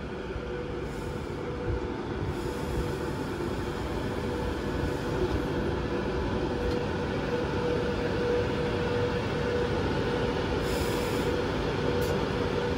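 Train moving along the track, a steady rumble with a steady tone running above it; it grows a little louder and falls away near the end.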